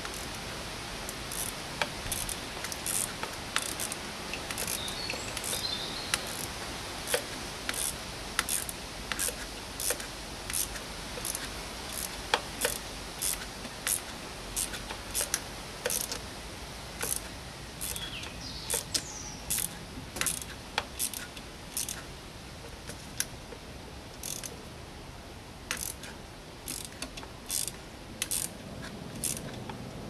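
Ratchet wrench clicking in short irregular runs, roughly one or two clicks a second, as it drives a 7 mm socket to tighten a worm-drive (Jubilee) hose clip.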